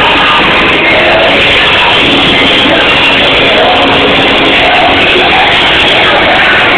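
Loud party music, so loud that it overloads the recording into a dense, distorted wash.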